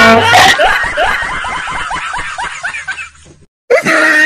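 Laughter: a run of quick, high-pitched snickers repeating several times a second, fading and cutting off suddenly about three seconds in. Another burst of laughter starts just before the end.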